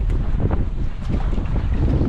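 Wind buffeting the microphone over seawater sloshing and splashing among rocks, with short splashes scattered through.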